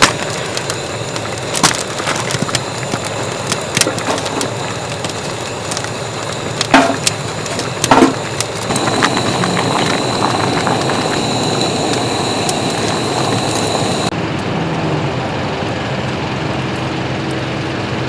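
Wood fire crackling in a stainless steel fire pit, with sharp pops every second or two. About eight seconds in, the crackle gives way to a louder steady rushing hiss, and the sound changes again near the end.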